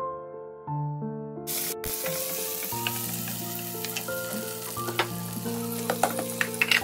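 Diced vegetables sizzling in hot oil in a nonstick wok, the sizzle setting in about a second and a half in, while a wooden spatula stirs them and taps against the pan several times near the end. Soft piano music plays underneath.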